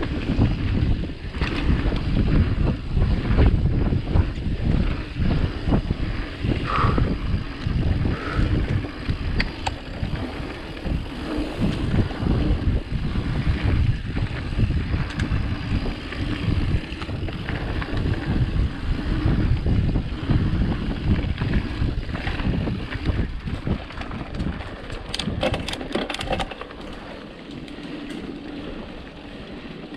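Mountain bike riding down a dirt enduro trail, with wind buffeting the microphone, tyres rumbling and the bike rattling and knocking over bumps. The sound quietens noticeably a few seconds before the end.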